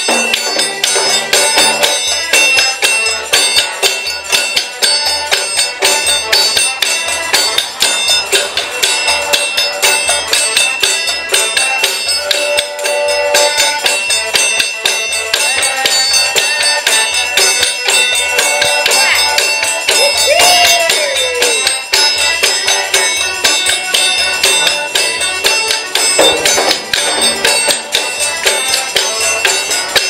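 Rodriguan traditional folk music played on diatonic accordion, a large hand-held frame drum and shaken and struck hand percussion, in a steady quick rhythm.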